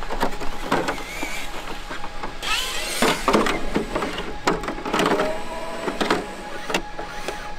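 Plastic body shell of a Traxxas X-Maxx RC monster truck being lowered onto the chassis and pressed into place: a string of hollow plastic knocks and clicks, the loudest a little after two seconds in and again near the middle.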